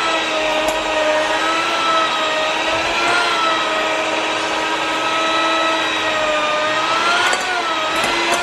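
Electric mixer with a dough hook running steadily, kneading bread dough; its motor whine dips slightly in pitch and recovers a few times as the dough drags on the hook.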